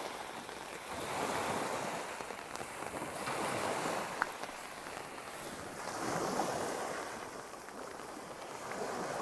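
Small sea waves breaking and washing up a shingle beach, the surf swelling and fading about every three seconds, with some wind buffeting the microphone.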